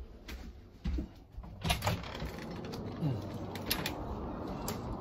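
Handling noise of a phone camera being carried and moved: scattered clicks and knocks, about five in all, over a steady background hiss that grows fuller about two seconds in.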